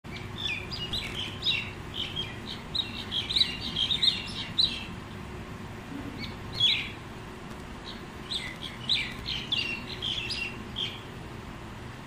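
A flock of common mynas calling, quick runs of short chattering notes in two bouts with a brief lull in the middle and a single call during it. A steady low rumble sits underneath.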